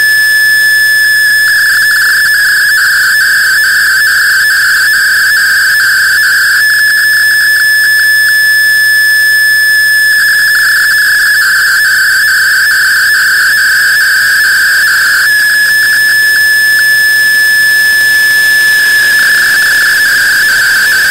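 MFSK32 digital picture transmission heard through a shortwave receiver: a steady high whistle-like tone that several times breaks into a buzzy, warbling band with a quick regular ticking as lines of the image are sent, then settles back to the plain tone, over a hiss.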